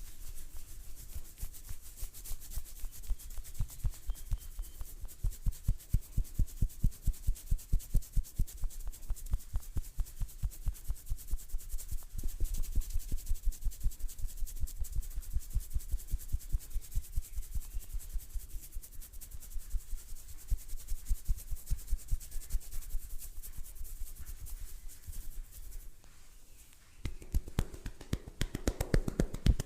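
Hands rubbing and stroking over skin during a massage, in a quick, even rhythm of several strokes a second, each with a soft thump and a brushing hiss.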